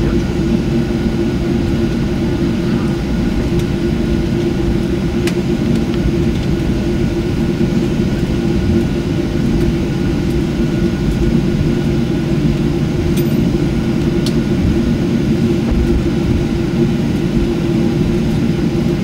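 Steady cabin noise inside a Boeing 737 on the ground after landing: engine and air-system noise, a low rumble under a steady hum, with a few faint ticks.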